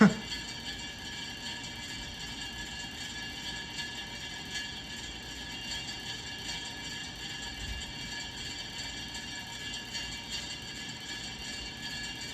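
Casablanca Wilderness ceiling fan running on high speed with a steady scraping, whining noise, caused by the spiral cap fitted in place of the downlight. A short sharp knock comes right at the start.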